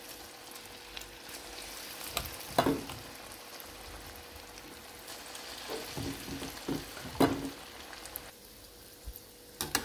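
Ulundu vadai (urad dal) batter balls deep-frying in hot oil: a steady sizzling bubble, with a few sharp clicks and knocks, about two and a half, seven and nearly ten seconds in.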